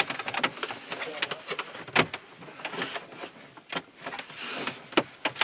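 A run of sharp clicks and knocks at irregular intervals, the loudest about two seconds in, as of objects being handled, moved and set down.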